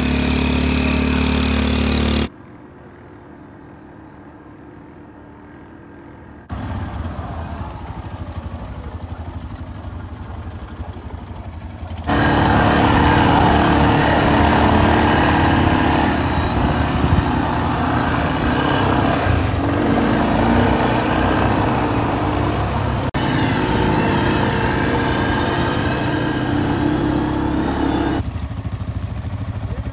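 Off-road vehicle engines running, ATVs or a UTV, heard in several sections that cut abruptly from one to the next. There is a much quieter stretch of a few seconds near the start, and the loudest engine sound comes in the second half.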